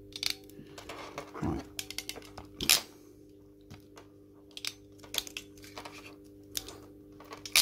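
A hand crimping tool and small blue insulated spade connectors being handled on a wooden table: scattered clicks and knocks, with a sharp click about two and a half seconds in and another near the end, over a faint steady hum.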